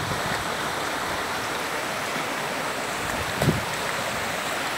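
Floodwater rushing over a road in a steady, even wash of noise. A single brief thump about three and a half seconds in.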